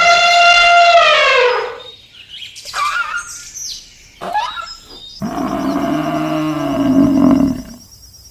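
Animal calls: a long, loud pitched call that drops in pitch as it ends, a few short calls, then a lower, rougher call lasting about two seconds.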